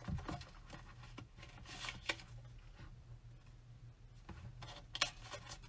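Hands handling a small trifold wallet and its card hang tag: faint rustling with a few short clicks and taps, over a low steady hum.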